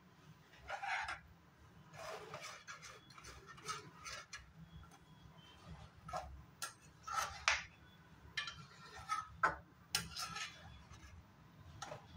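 A spoon scraping and knocking against the sides and bottom of a steel pan while stirring vermicelli in milk. It comes in irregular strokes, with a few sharper clinks.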